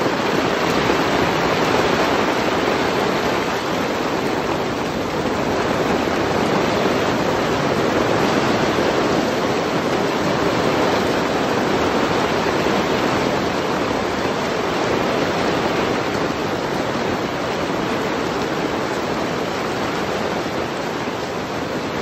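Summer hailstorm with heavy rain: hailstones and rain falling hard as a dense, steady hiss and patter.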